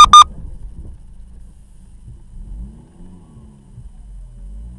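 Two short, high electronic beeps right after a collision, the dashcam's impact alert going off. Then a car engine runs low nearby, its pitch rising and falling about three seconds in and again near the end.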